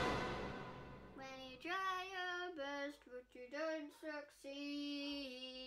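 A child singing a short wordless tune quietly, in several held notes that slide between pitches, starting about a second in. Before it, the ring of a loud drum hit dies away.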